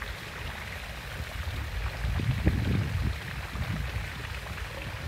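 Fountain jets splashing steadily into a garden basin. A gusty low rumble of wind on the microphone grows louder from about two seconds in.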